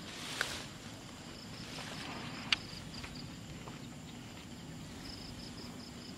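Insects chirping in a high, evenly pulsing trill that comes and goes, with a brief rustle near the start and a single sharp click about two and a half seconds in.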